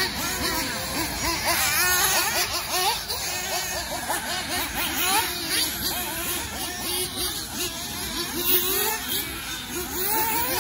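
Several nitro RC off-road race cars' small glow-fuel two-stroke engines revving up and down, their high whines rising and falling over one another as they race around the track.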